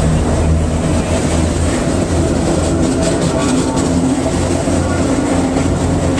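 Vintage New York City subway car rolling along, heard from inside the car: a steady low rumble with a held motor hum, and a run of wheel clicks over the rails about three seconds in.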